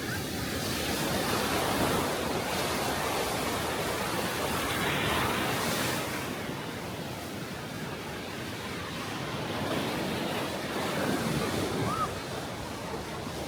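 Small Aegean Sea waves washing onto the beach, the surf swelling and ebbing twice. A short rising-and-falling tone comes near the end.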